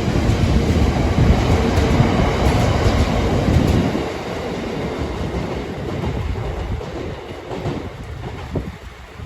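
A train headed by Class 66 diesel locomotive 66503 passing at close range: a loud rumble for the first four seconds, then wheels clicking over rail joints as the sound fades away.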